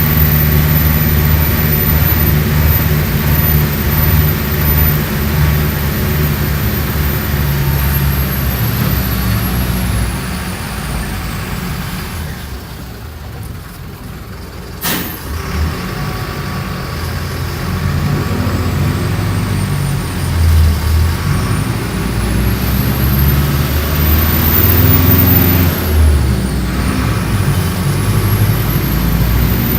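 Mercedes-Benz OF-1417 bus diesel engine running under way: it eases off about ten seconds in and is quietest just before a sharp click at about fifteen seconds, then pulls again and grows louder toward the end.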